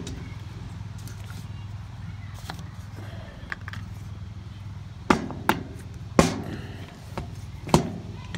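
Sharp knocks and clicks of cart parts and tools being handled during assembly, four louder ones between about five and eight seconds in, over a steady low hum.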